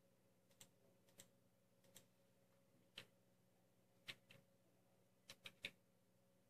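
Faint, sharp single clicks of computer input stepping a graphics card's memory-clock slider upward. There are about nine, irregularly spaced, with three in quick succession near the end, over a faint steady hum.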